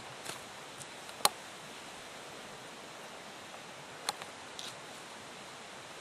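A person walking along a wooded trail: a steady hiss with a sharp crack about a second in and another about four seconds in, as of sticks or twigs snapping underfoot.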